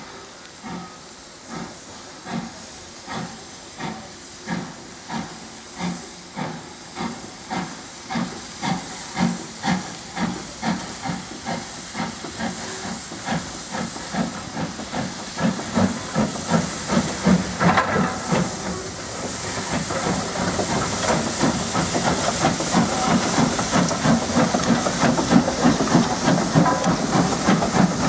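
LSWR O2 class 0-4-4 tank locomotive working a passenger train, its exhaust chuffs slow at first and quickening as it gets away from the station. It grows steadily louder as it approaches and draws alongside, with a rising hiss over the second half.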